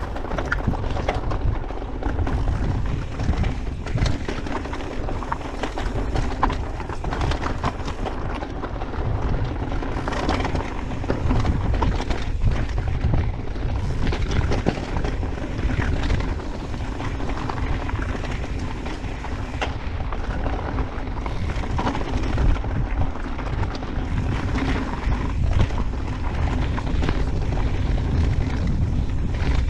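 Orbea Wild FS mountain bike rolling over a rocky gravel trail: a constant crunch and rattle of tyres on stones with frequent small knocks from the bike, over a heavy low rumble of wind buffeting on the camera microphone.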